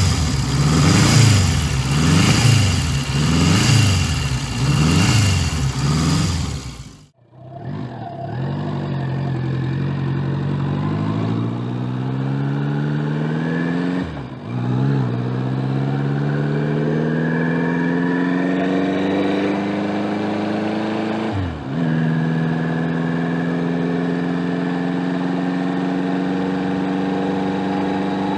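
Ariel Square Four's four-cylinder engine revved up and down about once a second with the bike standing still. Then the motorcycle pulls away under way, its pitch climbing, dipping twice at gear changes, and settling into a steady cruise.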